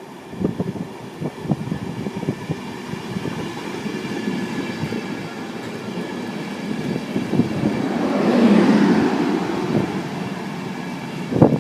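A train running past on the line, with rapid knocking of wheels over rail joints and running noise that swells about eight seconds in.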